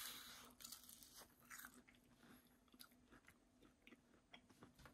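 Faint crunching and chewing of a crispy breaded walleye wing being bitten and eaten: a soft crunch at the start, then scattered small crackles as it is chewed.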